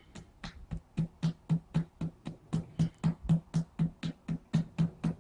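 Rapid tapping with the edge of the palm on a child's back during a drainage massage for a wet cough, about four quick strikes a second, each a short thud.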